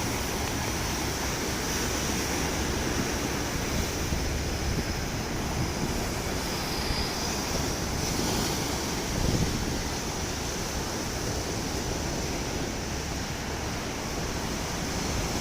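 Sea surf washing onto the shore, a steady rushing with wind on the microphone, and a brief louder surge about nine seconds in.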